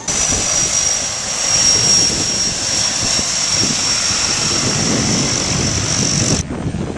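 Pilatus PC-6 Turbo Porter's turboprop engine at take-off power, a high turbine whine falling slightly in pitch over the propeller's rumble. The sound breaks off abruptly near the end, leaving wind on the microphone.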